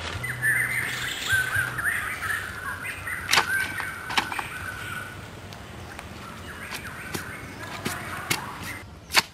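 A bird chirping and warbling for the first couple of seconds, then a handful of sharp knocks from a knife working bamboo, spaced seconds apart, the loudest near the end.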